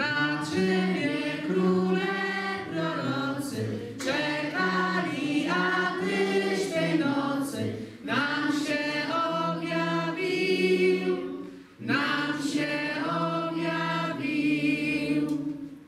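A group of children and adults singing together as a choir, in long held phrases with short pauses for breath.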